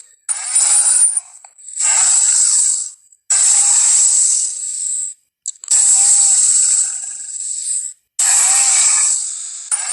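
Film dinosaur sound effects, the Triceratops calls, played one after another: five harsh, hissy roars of one to two seconds each, separated by short silences, thin with no low end.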